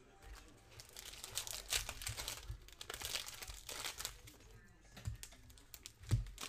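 Plastic wrapper of a trading-card pack being torn open and crinkled by hand: a run of crackling rustles and rips, with a low thump near the end.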